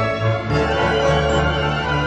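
Background theme music with sustained organ-like keyboard chords. The harmony changes about half a second in, when a deeper bass note enters.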